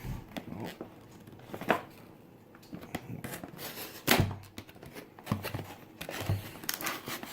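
Packaging of a new cordless screwdriver being handled and opened: scattered crinkling, tearing and light knocks, with a louder knock about four seconds in.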